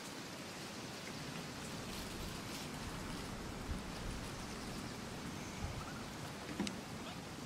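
A steady, even hiss of background noise with a few faint ticks.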